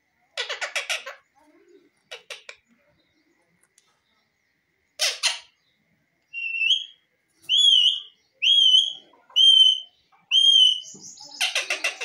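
Indian ringneck parakeet calling: a few short, harsh raspy bursts, then a run of five clear whistled notes about a second apart, each sliding up in pitch, and another raspy burst near the end.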